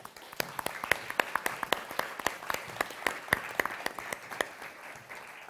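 Audience applauding with many separate claps, dying away near the end.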